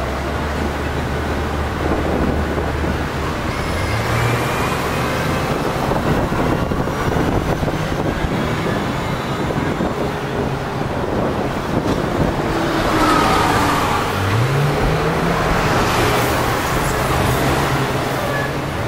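Busy city road traffic: double-decker buses and taxis passing, with a bus engine note rising as it pulls away a few seconds in and again about three quarters of the way through.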